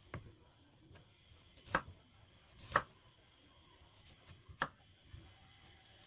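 Knife chopping a green-skinned vegetable on a cutting board: about four sharp knocks of the blade against the board, irregularly spaced.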